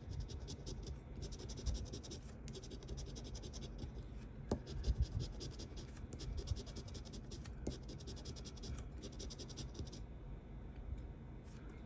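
Scratch-off lottery ticket being scraped in rapid back-and-forth strokes, uncovering the play area, with a few soft knocks against the table midway; the scraping stops near the end.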